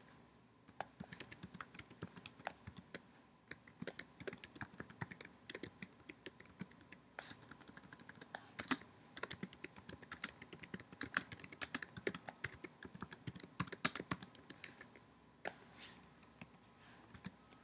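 Typing on a computer keyboard: a quick, uneven run of key clicks that thins out to a few last keystrokes about 15 seconds in.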